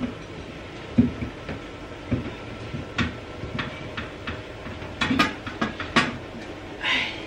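Irregular knocks and clatter of kitchenware and cupboard as a pressure cooker is reached for and brought down from a high shelf, with a short rustle near the end.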